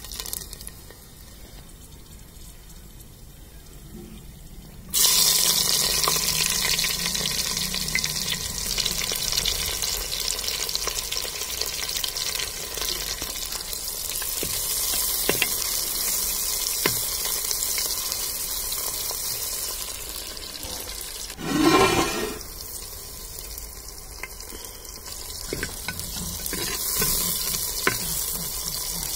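Sliced onions and spices frying in hot oil in a clay pot, stirred with a metal slotted spatula: a loud sizzle starts suddenly about five seconds in, as the onions hit the oil, and keeps on. A brief louder rush comes about three-quarters of the way through.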